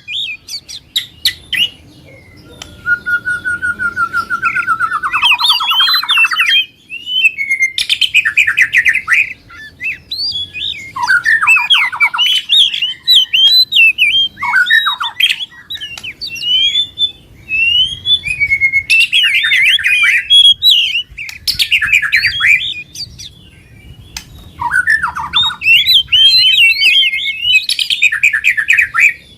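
Songbirds singing in a lively mix of rapid chirps, whistled phrases, harsh squawky notes and a long buzzing trill about three seconds in, coming in bursts with short gaps between them. It is a combined recording of aggressive 'fighter'-style songbirds, used as a lure to trigger caged birds that are reluctant to sing.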